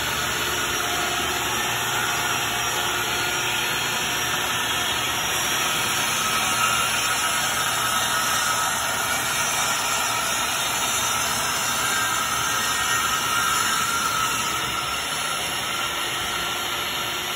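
Vertical panel saw running with a steady whirring noise, its dust-collection hose attached.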